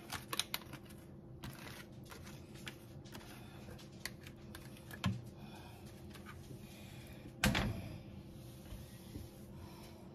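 Quiet clicks and light knocks of raw vegetables and a bowl being handled over a slow cooker's stoneware crock, most of them near the start, with a louder knock about seven and a half seconds in.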